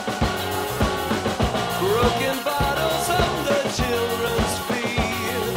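Background music with a steady drum beat and a melody line over it.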